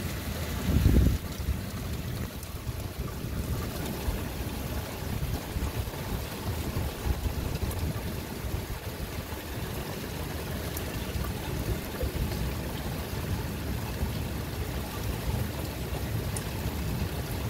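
Heavy rain falling steadily, with a continuous low rumble of thunder under it. A short deep thump comes about a second in.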